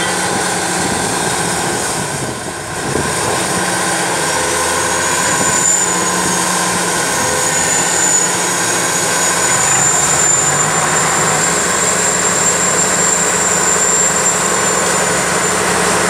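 Tata Hitachi ZX450 excavator's diesel engine running steadily as the machine works, dipping briefly about two and a half seconds in. A thin high whine comes in about five seconds in and holds on over the engine.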